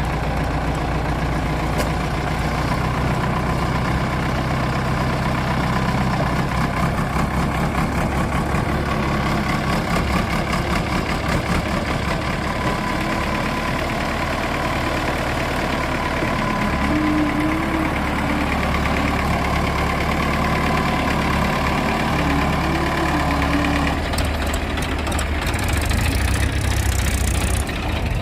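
Diesel engine of heavy earthmoving machinery running steadily. A brief wavering whine comes twice in the second half, and a rushing hiss rises near the end.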